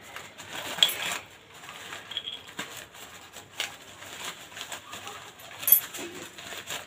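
A small plastic packet being handled and worked open, with scattered rustling and clicking and two sharper clicks, about a second in and near the end.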